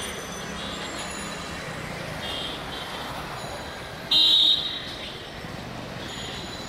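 A loud, short horn blast about four seconds in, with a fainter brief toot a couple of seconds before it, over steady crowd and city noise.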